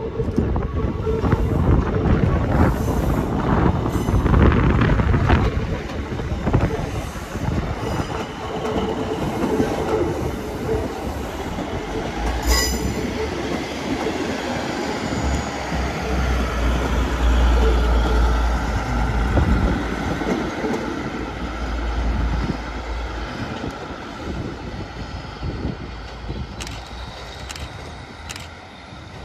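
ScotRail Class 156 diesel multiple unit, two units coupled, passing on departure with its underfloor diesel engines running and its wheels rumbling over the rails. There is a sharp click about twelve seconds in. The sound fades as the train pulls away, with a few sharp clicks near the end.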